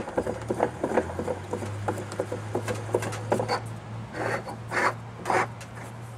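Metal bearing-puller parts being worked by hand against a washing machine tub's front bearing hub while the tool is centered: scraping and rubbing with light clicks, and a few louder short rasps about two-thirds of the way through. A low steady hum runs underneath.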